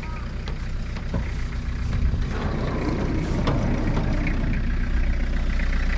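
Minivan engine idling in a steady low rumble that grows a little louder about two seconds in. A few clicks and a knock come from the van's sliding door being handled.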